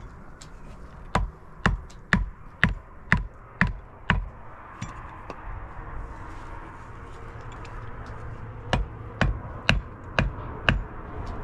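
Sharp knocks of a hand-held stone hammering on a hoe laid on a concrete block, in two runs: seven blows about two a second, a pause, then five more at the same pace.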